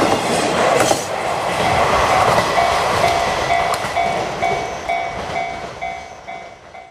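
A train passing over a level crossing, its running noise with a few wheel clicks fading away. The crossing's warning bell rings about twice a second and comes through clearly as the train dies away.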